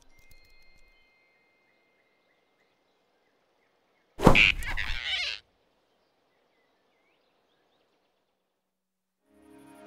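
Cartoon sound effect of a big rabbit snatching a flying squirrel off a branch. It is one sudden, loud sound about four seconds in, lasting just over a second, with near silence around it.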